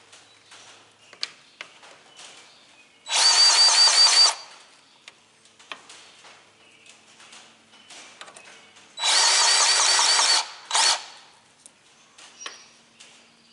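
Cordless grease gun motor pumping grease into the baler's grease fittings: two runs of about a second each with a steady high whine, the second followed by a brief extra burst, with light clicks and knocks of the gun's coupler on the fittings in between.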